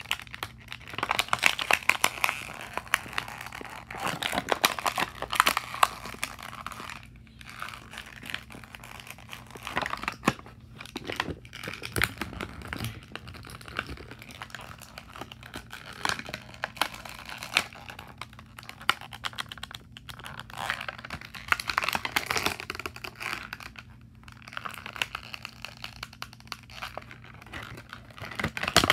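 Toy packaging crinkling and crackling with many small irregular clicks as a figure is worked loose from its box.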